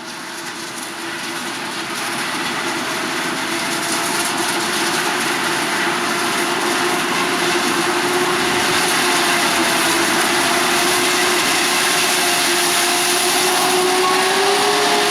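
Krone BiG X 1180 self-propelled forage harvester running while chopping maize: a loud steady machine drone with a dense rushing hiss. It grows louder over the first few seconds, and its pitch rises slightly near the end.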